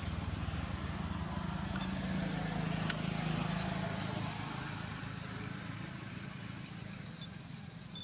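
Outdoor background noise: the low hum of a distant motor vehicle swells over the first few seconds and then fades, under a steady high-pitched whine, with one sharp click about three seconds in.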